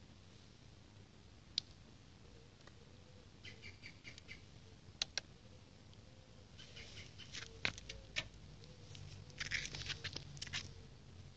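Faint handling noise from a quadcopter's LiPo battery and its plug and lead: a few sharp clicks and short spells of crackling rustle, the busiest near the end.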